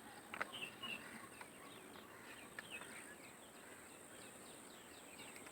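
Faint scattered bird chirps over quiet outdoor ambience, with a steady thin high-pitched tone and a few light clicks in the first few seconds.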